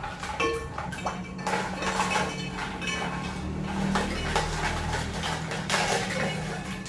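Ice cubes dropped from a plastic cup into a glass punch bowl of juice, clinking against the glass and each other in a run of irregular clinks.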